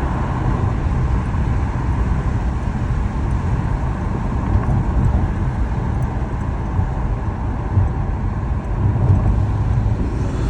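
Acura TLX Type S's turbocharged 3.0-litre V6 running steadily with an HPS aftermarket cold air intake fitted, a low, even rumble.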